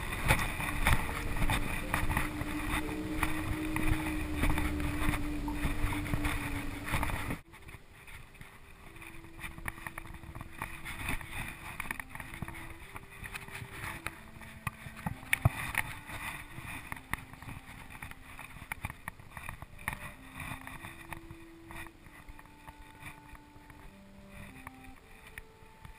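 Wind rumbling on the microphone out on the water, with a low held tone under it. About seven seconds in it cuts off suddenly, leaving a much quieter background with a slow line of single held notes at changing pitches.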